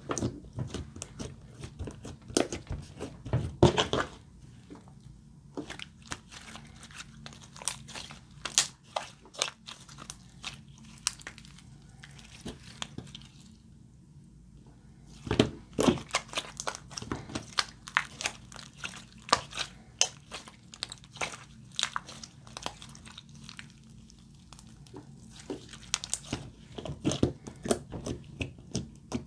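Slime being squished and kneaded by hand, making irregular clusters of short wet crackles and pops, with a couple of quieter pauses.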